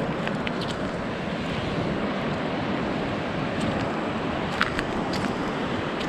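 Steady surf wash and wind buffeting the microphone on an open beach, with a few faint clicks near the end.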